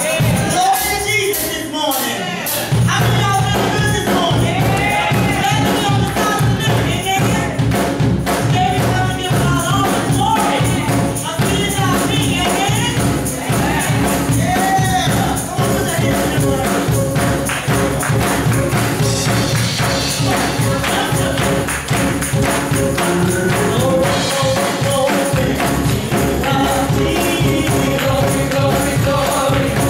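Gospel praise team singing with microphones over a band, a tambourine shaking a fast steady beat. The low backing instruments come in about two and a half seconds in.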